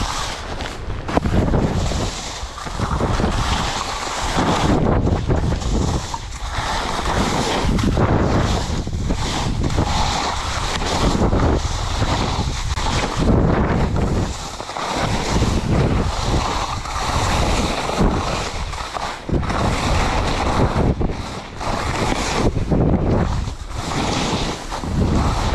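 Wind buffeting the microphone at skiing speed, mixed with skis scraping and hissing through soft, chopped spring snow. The noise rises and falls in irregular surges every second or two.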